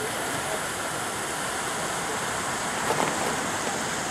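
Steady hiss of burning ground fireworks: a red-burning lancework heart and red fire pot.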